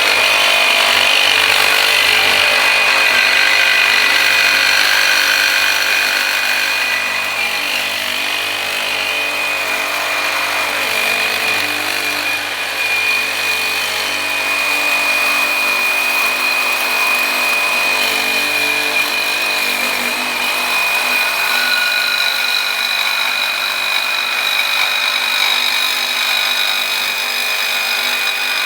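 Corded Metabo HPT reciprocating saw cutting through thick steel with a Diablo AMPED Steel Demon carbide-tipped blade: a continuous saw run with a steady high-pitched whine over the grinding of the blade in the metal.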